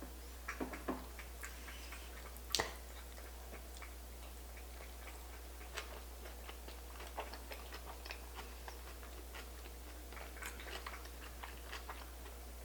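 A person eating a cauliflower-rice sushi roll by hand close to the microphone: scattered soft mouth clicks and wet chewing smacks, with one sharper click about two and a half seconds in. A steady low electrical hum runs underneath.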